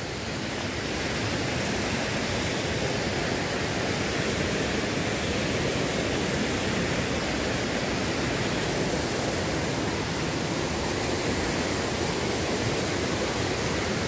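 Rushing water of a rocky river's rapids, a steady, even rush that swells slightly in the first second or two.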